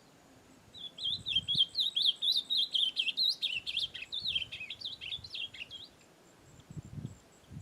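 Ultramarine grosbeak (azulão) in brown plumage singing one long, fast warbling phrase of quick rising and falling notes, starting about a second in and lasting about five seconds.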